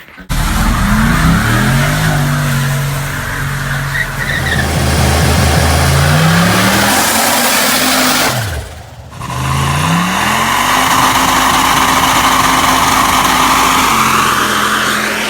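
Car burnout: the engine revs up and holds high revs while the tires spin and squeal. Partway through the throttle drops off briefly, then the engine revs back up and holds again.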